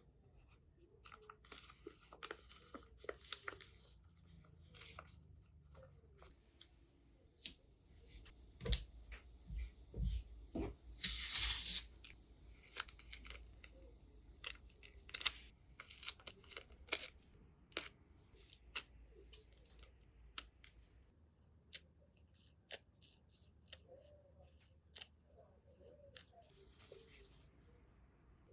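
Paper-crafting handling sounds: scattered taps, clicks and rustles of paper being worked by hand, with one louder tearing sound about a second long a little before the middle.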